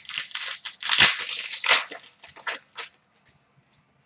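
Plastic trading-card packaging being handled and crinkled: a dense spell of crackling for about two seconds, then a few scattered crackles.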